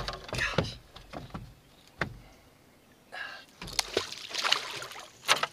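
Scattered knocks and clatter of gear and handling inside a small fishing boat: a sharp knock about two seconds in and a louder one near the end, with faint voices in between.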